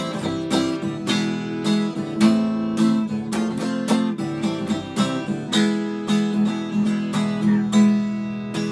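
Acoustic guitar strummed in a steady rhythm, chords ringing between the strokes, with no voice.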